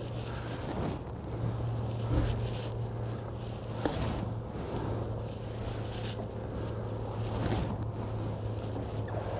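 Steady low hum of a small fishing boat's motor, with wind noise on the microphone and a single sharp knock about four seconds in.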